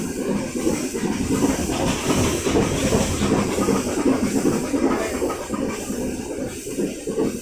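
Nilgiri Mountain Railway toy train running uphill, its carriage wheels clattering steadily on the track with a hiss over the top.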